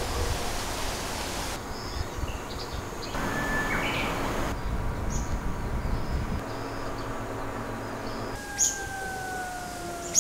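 Outdoor ambience of wind through the trees, a steady rushing noise that changes abruptly several times. Near the end come short bird chirps and a faint, slowly falling whine.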